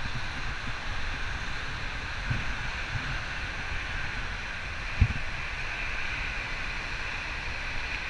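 Wind buffeting the camera microphone over a steady background hum, with a single knock on the microphone about five seconds in.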